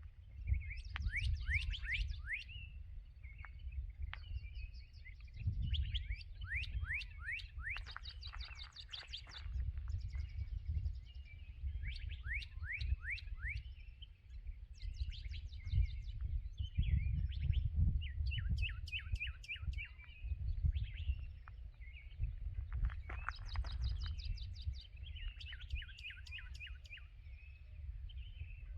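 Dawn chorus of several songbirds singing over one another, with fast trills, runs of quick down-slurred notes and short warbled phrases following each other. A steady low rumble runs underneath.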